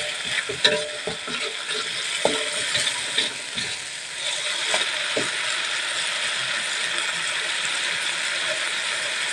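Metal spatula scraping and clinking against an aluminium wok as chilli paste is stirred, over a steady sizzle of frying. The scraping stops about five seconds in, leaving only the sizzle.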